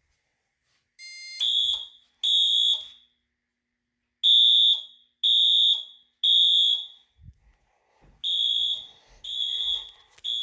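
Fire alarm horn sounding the temporal-three evacuation pattern (code 3 from the panel): three short, high-pitched blasts, a pause, then three more, repeating. It starts about a second in with a short chirp and only two blasts in the first group.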